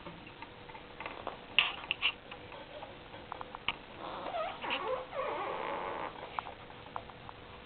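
Hamster eating an insect: a few sharp crunching clicks about a second and a half in, then a louder stretch of about two seconds with squeaky, gliding sounds and more clicks.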